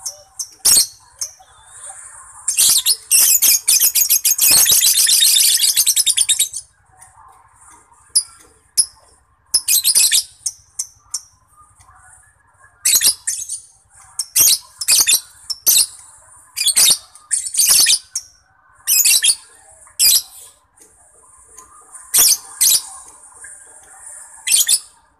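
Lovebird calling: sharp, high-pitched chirps and squawks scattered throughout, with one long, rapid chattering trill about three to six seconds in.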